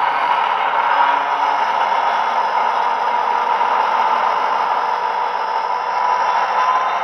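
Class 59 diesel engine sound from a model locomotive's DCC sound decoder, played through its small onboard speaker while the model runs under power. The engine note runs steadily, with a faint tone that rises slightly near the end.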